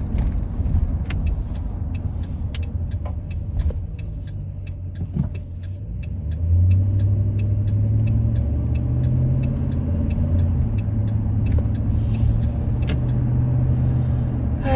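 Ram pickup's freshly rebuilt Hemi V8 running as heard from inside the cab, getting louder about six and a half seconds in as the truck pulls away. A regular clicking about twice a second runs through most of it.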